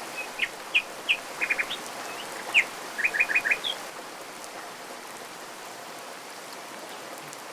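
Small birds chirping in short, quick notes, some in rapid runs of three or four, over the steady rush of a waterfall; the chirping stops about four seconds in, leaving only the water.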